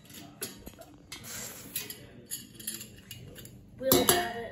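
Metal camping coffee percolator and its lid being handled: small clicks and taps of the lid and its glass knob, then a louder metallic clank with a brief ring about four seconds in.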